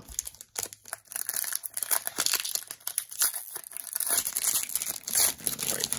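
A 2020-21 Skybox Metal Universe hockey card pack's wrapper being torn open and crinkled by hand, an uneven run of crackles and rustles.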